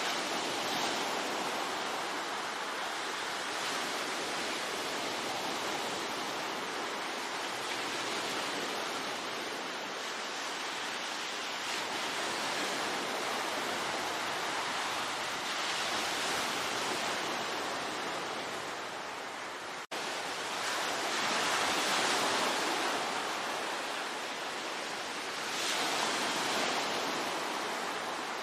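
Sea waves breaking and washing on the shore: a steady rush of surf that swells every few seconds. About two-thirds of the way through, the sound cuts out for an instant and comes straight back.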